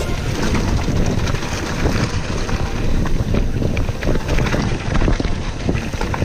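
Wind buffeting the camera microphone over the rolling noise of a Vitus Mythique 27 VRX mountain bike's tyres on a loose gravel and dirt trail descent, with scattered clicks and rattles from the bike over rough ground.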